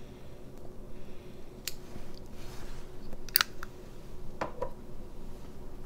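Tobacco pipe being lit with a lighter and puffed: a few sharp clicks and pops, the strongest a little past halfway, with a soft breathy rush a couple of seconds in.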